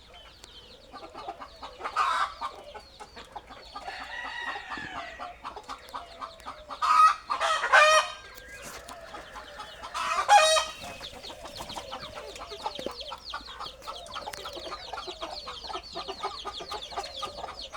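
Chickens: hens clucking, with a few loud calls about two, seven to eight and ten seconds in, over a steady run of high-pitched peeping from small chicks.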